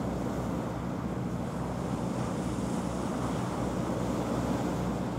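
Steady wind on the microphone over the wash of the sea, with a low steady engine drone from the fishing boat underneath.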